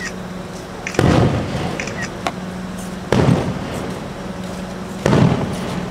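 Aerial fireworks shells bursting: three loud booms about two seconds apart, each with a short rumbling tail, and faint crackles between them.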